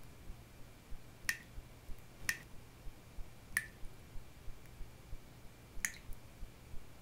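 Single drops of liquid plinking into a puddle, four separate drips at uneven gaps, over a faint steady low hum.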